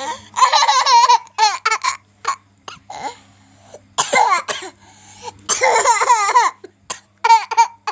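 A young child laughing hard in several high-pitched bouts, breaking into coughs from laughing so much.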